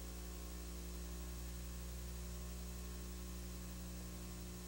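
Faint steady electrical hum with a low hiss over it, with nothing else sounding.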